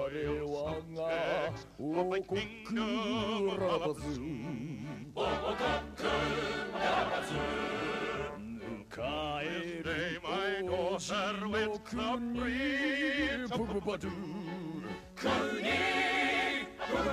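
A cartoon song: deep male voices singing operatically with a wide vibrato, at times as a group, over an orchestral accompaniment with a steady repeating bass beat.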